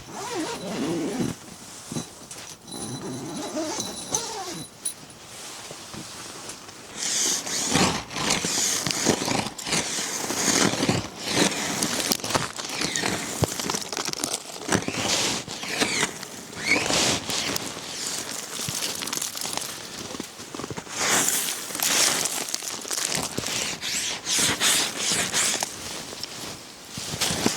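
Irregular crinkling and rustling, many short scratchy strokes in quick succession, louder from about seven seconds in.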